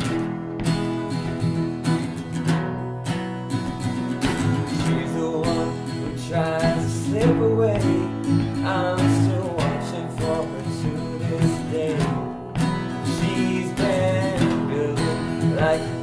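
Acoustic guitars strummed together in a folk-rock song, with a man singing over them from about six seconds in.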